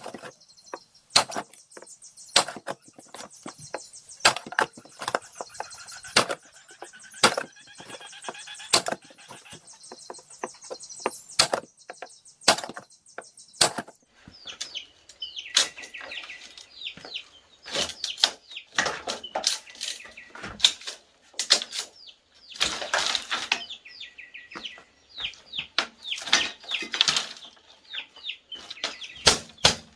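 Hand tools striking wood: sharp blows about once a second, then quicker, irregular knocks in the second half, broken by two longer rasping noises.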